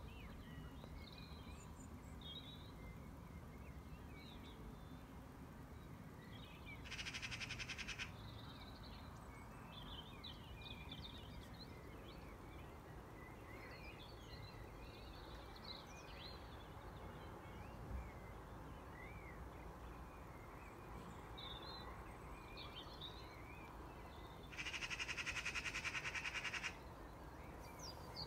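Magpie giving its harsh, rapid chattering rattle twice, a short burst and then a longer one near the end: the alarm call used in mobbing a cat. Faint chirps of small songbirds run underneath.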